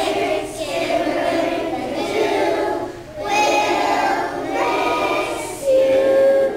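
A group of young children singing together as a choir, with a short break between phrases about three seconds in and a long held note near the end.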